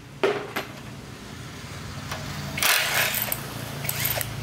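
Cordless drill/driver running in short bursts on a bolt of a small crusher's bearing block, the longest burst a little over halfway through, with a couple of sharp metal clicks near the start and a steady low hum underneath.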